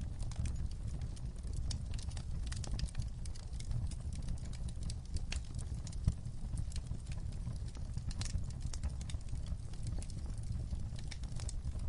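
Fire crackling, with irregular sharp pops and snaps over a low steady rumble; one pop about six seconds in is louder than the rest.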